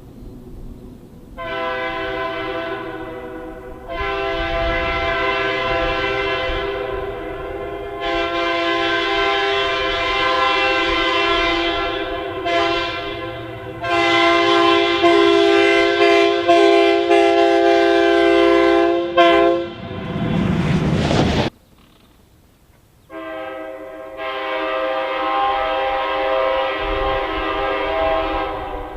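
Locomotive multi-chime air horn sounding a held chord in several long blasts, with a shorter one between them. About twenty seconds in, a rush of noise cuts off, there is a brief pause, and the horn sounds again near the end.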